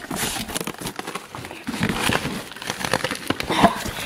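Cardboard shipping box being pulled open and handled by hand: irregular rustling, scraping and crinkling of cardboard and packing material, with small knocks.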